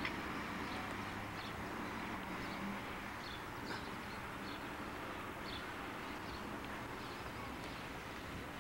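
Steady outdoor background hiss with scattered short bird chirps, and a faint low hum in the first few seconds.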